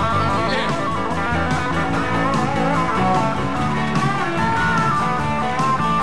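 Country band in an instrumental break: an electric guitar plays a lead line with bent notes over strummed acoustic guitars, bass and drums.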